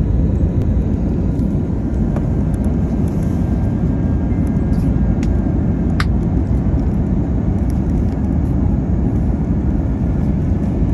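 Steady cabin noise of an Airbus A321 on approach, heard at a window seat by the wing: engine and airflow noise, a deep even rumble. A faint sharp click about six seconds in.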